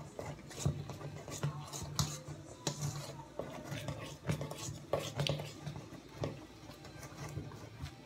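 Hands working cookie dough in a stainless steel mixing bowl: irregular knocks, clicks and scrapes of fingers and bowl against the metal and the countertop, over a faint low hum.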